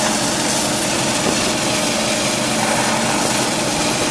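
Panther Model H1 hydro excavator at work: a steady, loud hiss from the high-pressure water jet as it washes out soil, over the steady hum of the machine's engine and pump.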